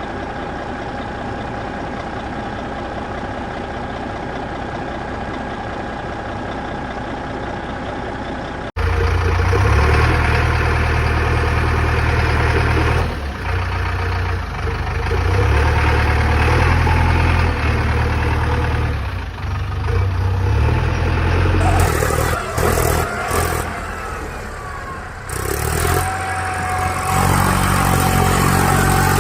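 Vehicle engine sounds, edited together. A steady engine hum gives way suddenly, about nine seconds in, to a louder, deeper engine running and revving. The sound changes abruptly several more times near the end.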